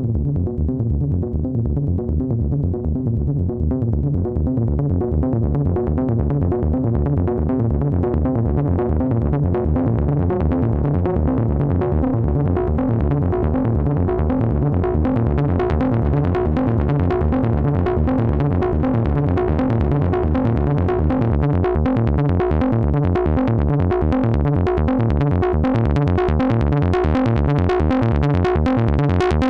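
A fast repeating synthesizer sequence from a Eurorack modular synth, played through a MachineRoom 204D VCF, a Moog-style ladder filter clone, with audio-rate modulation on the filter's second CV input. It starts dark and grows steadily brighter and buzzier as the filter opens.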